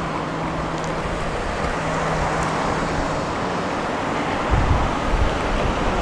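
Urban street traffic noise: a steady hum of road vehicles. A short low rumble comes about four and a half seconds in.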